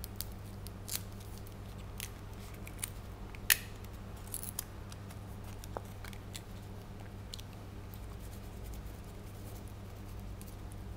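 Light clicks and taps of fingers handling a playing card and pressing copper tape onto it on a plastic sheet, scattered and irregular, the sharpest about three and a half seconds in, over a steady low hum.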